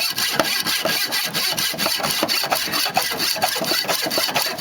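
Hand hacksaw sawing through a rusted steel bumper bracket in steady back-and-forth strokes, cutting off bolts too rusted to undo with a spanner.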